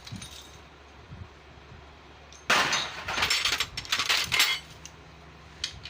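Metal tools and engine parts clattering and clinking together for about two seconds, starting about two and a half seconds in, with a single click near the end.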